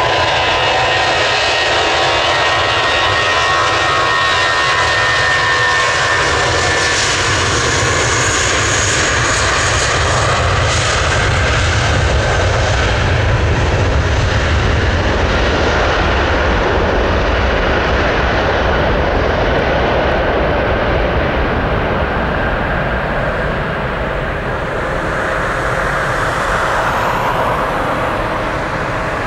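Airbus A320's two IAE V2500 turbofan engines at takeoff thrust: a steady jet roar through the takeoff roll and climb-out, with a whining fan tone in the first several seconds. The low rumble is strongest around the middle as the aircraft passes, and the high end fades in the last third as it climbs away.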